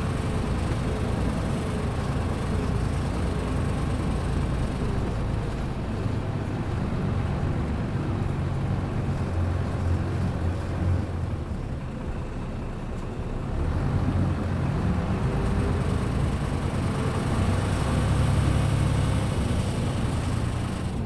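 Cabin running sound of a Hino KC-RU1JJAA 9.5 m bus, whose engine is a medium-duty type: a steady low engine drone with tyre and road noise and a faint wavering whine. The engine grows louder in the second half as the bus pulls harder.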